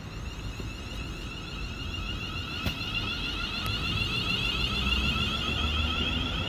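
Class 380 electric multiple unit moving past at close range: its traction motors give a steady high whine over a rumble of wheels on rail, growing louder as the train draws alongside.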